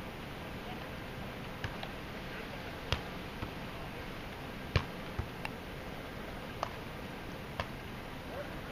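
About eight sharp clicks and taps at uneven intervals over a steady background hiss, the loudest a little before the middle.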